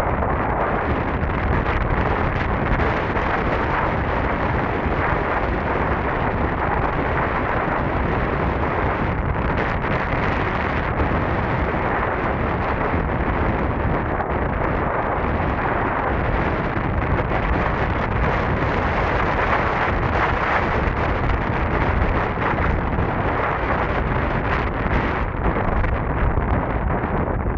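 Steady wind noise buffeting the microphone while riding an electric scooter at speed.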